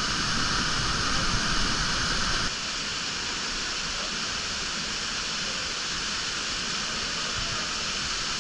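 Rushing water of a canyon stream and waterfall, a steady noise that changes abruptly about two and a half seconds in, becoming a little quieter with less low rumble.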